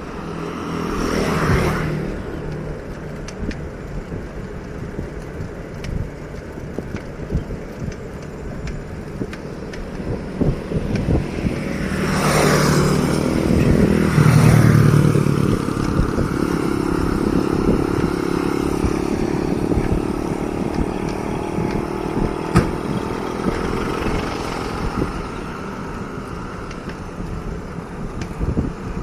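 Motor vehicles passing close by on a road, two louder passes about a second in and again near the middle, with an engine hum lingering after the second, over a steady rumble of road and wind noise.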